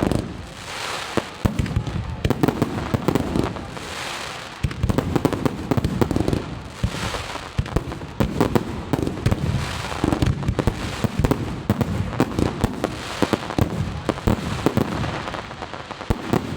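Aerial fireworks display: a dense, continuous barrage of shell bursts, many sharp bangs in quick succession, with waves of crackling every few seconds.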